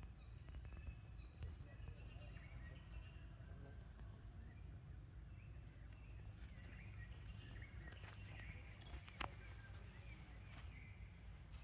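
Quiet outdoor ambience: a steady low rumble with faint, scattered short high chirps, and one sharp click about nine seconds in.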